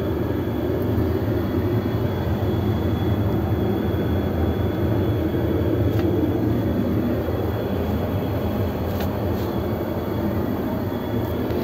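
Steady low rumble of an Airbus A320-family jetliner's cabin noise in cruise, engine and airflow noise heard inside the aircraft lavatory.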